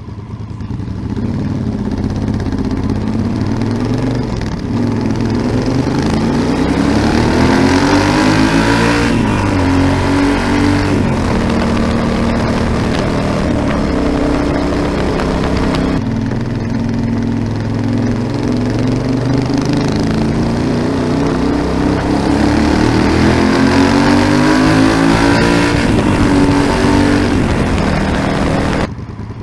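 Yamaha XT1200ZE Super Ténéré's parallel-twin engine through a Delkevic 343 mm oval carbon-tipped aftermarket exhaust, accelerating hard twice. The pitch climbs and drops back in steps at the gear changes, with a steadier stretch in between.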